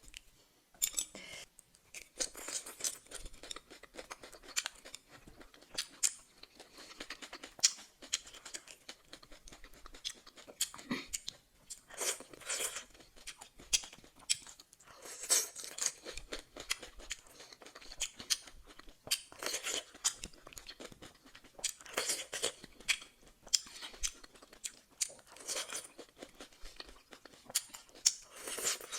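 A person chewing and crunching food close to the microphone. There are many sharp crunchy clicks, coming in louder bursts every few seconds.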